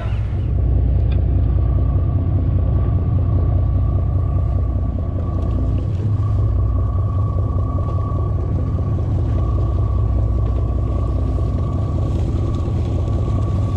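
Sportfishing boat's engine running: a steady low drone with a thin, steady whine above it.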